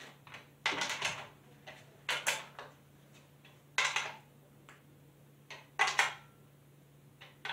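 Chainsaw guide-bar nut being tightened firmly with a combination plug wrench: a series of irregular metallic clicks and clinks as the wrench seats on the nut and turns, several of them sharper than the rest.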